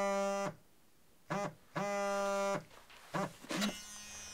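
Mobile phone ringing: a ringtone of short notes followed by a longer held note, repeating about every two seconds. It breaks off near the end as the call is answered.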